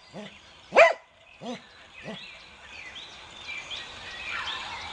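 Cocker spaniel barking: one sharp, loud bark just under a second in, then a shorter, softer bark about half a second later.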